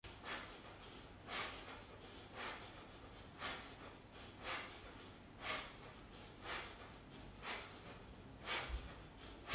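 A man breathing out hard in short bursts, about one each second, in rhythm with his workout movements. There is a low thump near the end.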